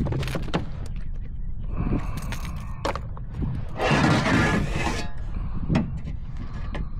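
Clicks, knocks and rattles of a caught speckled trout being handled and measured on a kayak, with a louder rushing burst about four seconds in.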